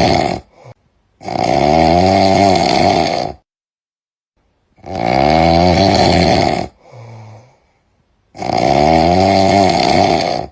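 A man snoring loudly, with long rattling snores coming about every three and a half seconds and silence between them: the tail of one snore, then three full ones.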